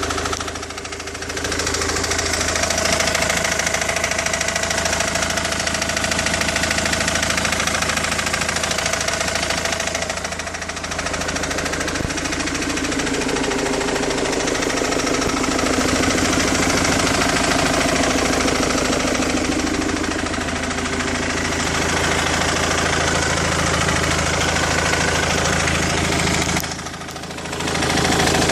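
Ford Mondeo engine running at a steady speed, with no revving. The sound drops briefly three times: about a second in, around ten seconds in, and near the end.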